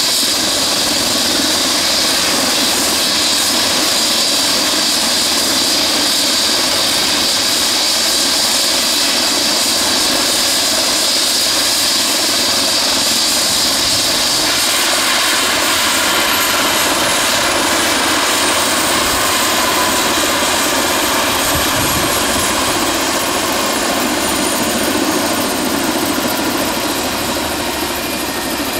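An Airbus EC135P-2 (H135) helicopter on the ground after landing, its twin turboshaft engines and rotor running steadily. About halfway through the sound changes and a high turbine whine starts slowly falling in pitch as the engines begin to wind down, the rotor still turning.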